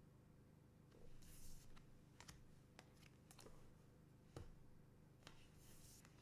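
Trading cards being handled, faint: a scattering of light clicks and taps, with a couple of soft sliding swishes of card against card.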